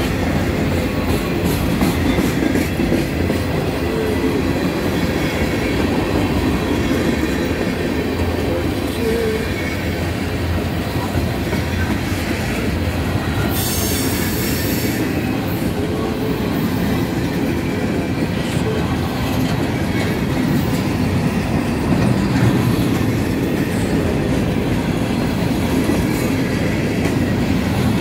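Cars of a long mixed freight train (covered hoppers, flatcars, gondolas) rolling past close by: steady noise of steel wheels on the rails, with a brief high-pitched wheel screech about halfway through.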